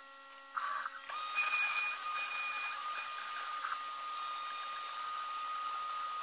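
Small CNC router spindle running with a steady whine while milling an acrylic part. From about a second in, a steady hiss joins it from the nozzle aimed at the cutter.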